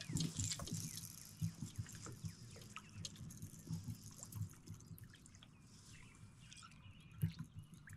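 Faint, irregular drips and trickles of water around a kayak, with light low knocks.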